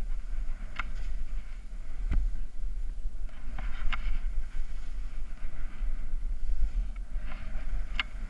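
Snowboard sliding and carving down steep snow: the board's edge scraping and hissing on the snow under a low rumble of wind buffeting the camera microphone, with a few short sharp ticks.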